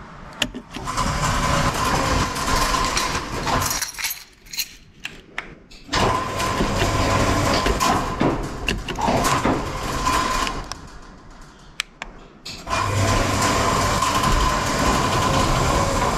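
Electric garage door opener motor running the door, with a steady hum. It runs in three spells of about four seconds, stopping and starting again twice as it is switched from the remote, with a few clicks in the pauses.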